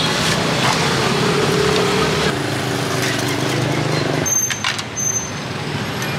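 Street traffic with a motor vehicle's engine running close by, a steady hum that stops about four seconds in, followed by a couple of short high squeaks.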